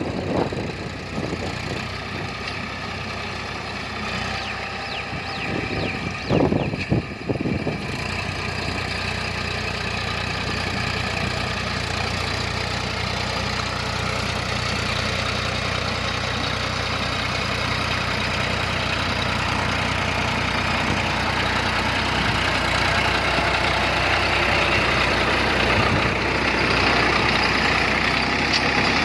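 Massey Ferguson Dyna Trac 246 tractor engine running steadily from about eight seconds in, getting a little louder near the end. Before that there are a few loud, sudden knocks about six to seven seconds in.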